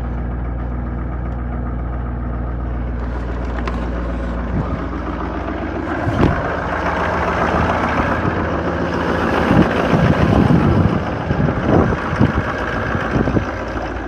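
Duramax diesel pickup engine idling just after a cold start at about −5 °F, first a steady hum heard from inside the cab. A sharp knock comes about six seconds in, then the idle is heard from outside the truck, louder, with crunching steps in snow over it.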